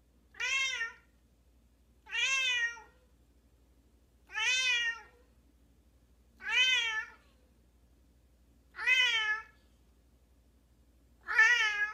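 Young tabby cat meowing six times at a steady pace, about one call every two seconds, each call rising then falling in pitch. These are insistent attention-seeking meows: the cat wants to be picked up and held.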